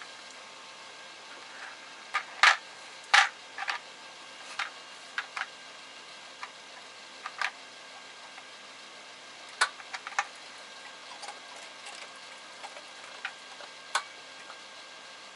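Irregular sharp clicks and light knocks of hard plastic being handled, with the loudest pair about two and a half to three seconds in and others scattered through, over a faint steady hiss.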